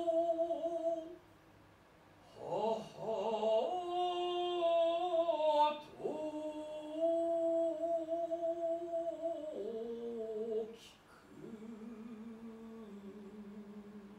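A solo voice singing long, held notes without clear words, in four drawn-out phrases with short breaks between them, sliding and stepping between pitches. The last phrase is quieter and lower.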